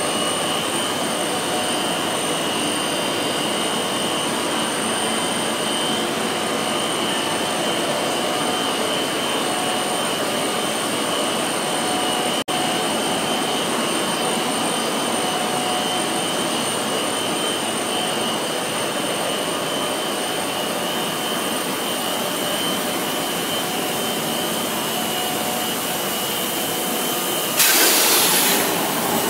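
Steady machinery noise with a constant high whine from a running PVC foam board extrusion line. About two seconds before the end, a short, louder hiss rises over it.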